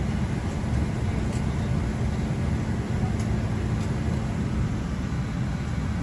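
Steady, low rumbling noise inside an airliner cabin, the unbroken drone of a jet airliner.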